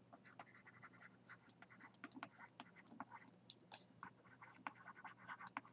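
Faint scratching and light ticking of a stylus on a tablet as a word is handwritten: many small strokes a second.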